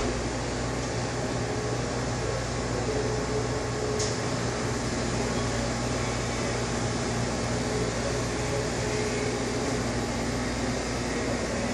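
Steady machine hum and whir of indoor cooling equipment, even in level throughout, with a single faint click about four seconds in.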